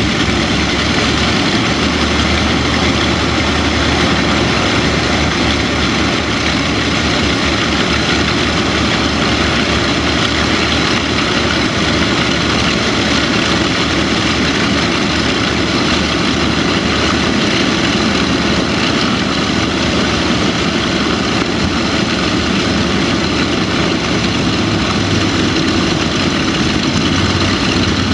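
Martin Mars flying boat's four radial piston engines running steadily at low power as it taxis on the water.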